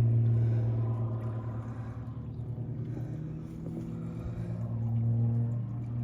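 A large engine running steadily: a low, even hum with overtones that shift slightly in pitch a few seconds in.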